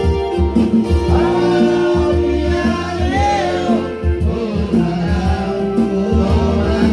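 Men singing a song over backing music, with held chords and a steady low beat.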